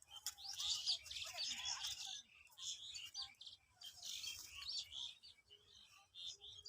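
Pet parakeet chattering in quick squeaky chirps and short calls, busiest in the first two seconds and again about four seconds in, then sparser.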